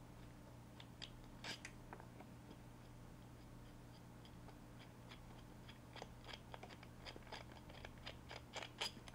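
Faint, scattered small clicks and ticks from the small screws of an Alphacool Eisbaer pump-reservoir housing being turned out by hand and set down, coming more often in the last few seconds.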